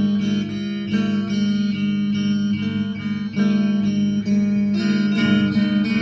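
Strummed guitar playing an instrumental passage between sung lines of a song, its chords changing about once a second.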